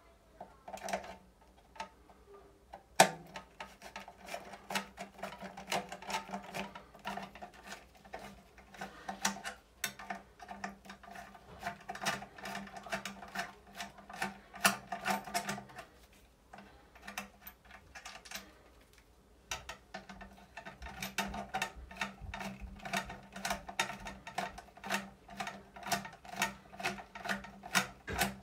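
Ratcheting hand screwdriver backing screws out of a metal exhaust fan housing, clicking rapidly in two long spells with a pause of a few seconds between.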